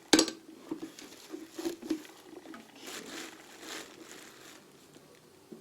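Metal lathe parts and tools being handled in a toolbox drawer: a sharp knock just at the start, then scattered light clinks and rustling as pieces are moved and turned over.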